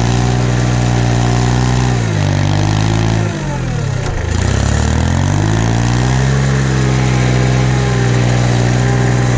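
Tractor engine running under load while its plow blade pushes snow into a hard ice edge. The engine speed sags about two seconds in, dips lowest around three and a half seconds, then climbs back and holds steady.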